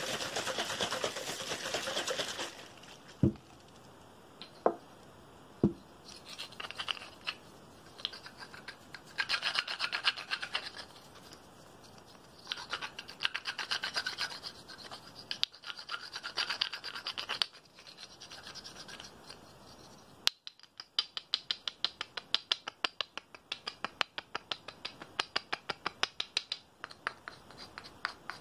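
Spray bottle hissing for about two seconds, then three sharp taps, then scratching and rubbing on brown tubes held in the hands. The scratching comes in patches at first and turns into fast, even strokes, about four a second, in the last eight seconds.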